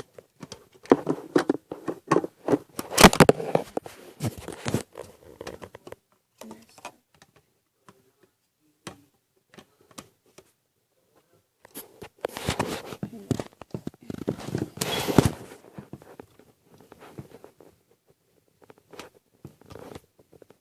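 Plastic clicking, scraping and rattling as the foregrip of a Nerf Retaliator Elite blaster is slid onto the rail under its barrel. The sounds come in two spells of busy handling, one at the start and one about halfway through, with only scattered clicks between.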